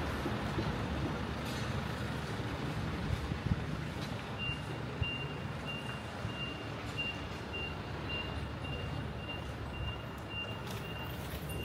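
A vehicle's reversing alarm beeping, a single high tone about twice a second, starting a few seconds in over the low rumble of an engine and street noise.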